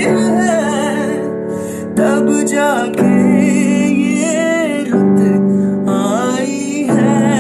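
Background music: a song with piano or keyboard and a wavering melody line, without words in this stretch.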